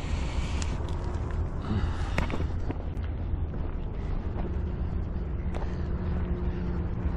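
Footsteps crunching on a gravel and rock breakwall, a few irregular steps, over a steady low rumble.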